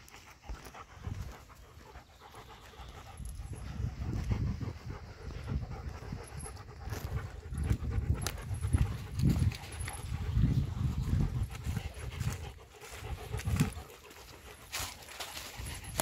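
A dog panting close by in uneven breathy swells, louder from about four seconds in, with footsteps crackling on dry leaves.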